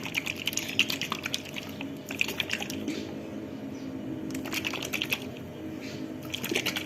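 Mustard oil with roasted garlic cloves sloshing and rattling inside a closed container as it is shaken, in about four bouts of shaking.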